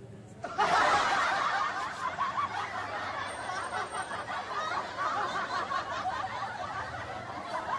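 Breathy, stifled laughter through the nose (snickering and giggling) while a stick tickles inside the nose to bring on a sneeze. It starts about half a second in and goes on with hardly a pause.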